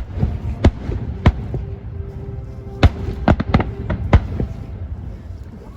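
Fireworks bursting overhead: a run of about eight sharp bangs at irregular intervals, coming fastest around three to four seconds in, over a low rumble.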